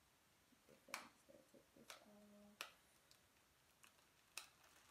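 Faint crinkles and crackles of a clear plastic bag being handled and pulled open by hand, a few separate sharp crackles about a second in, around two and a half seconds and near the end. A brief low hum just after two seconds.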